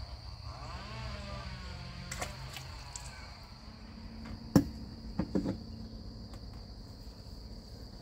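A steady high-pitched insect drone, with a sharp knock about halfway through and a short run of quieter knocks just after.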